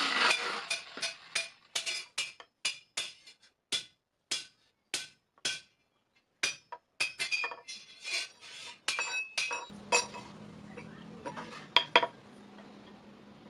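Hammer blows on metal, each a sharp ringing clink. They come about three a second at first, then slower and more irregular, with two louder strikes near the end. A faint low hum starts about ten seconds in.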